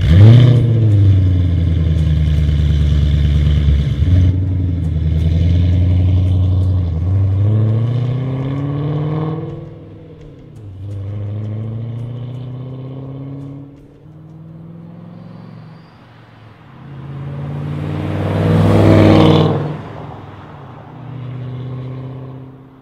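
Ford Shelby GT500's supercharged 5.4-litre V8 through an MBRP mandrel-bent stainless cat-back exhaust, pulling away hard with the revs climbing and dropping at two upshifts, then fading into the distance. Later it comes back and drives past, loudest a few seconds before the end, its pitch falling as it goes by.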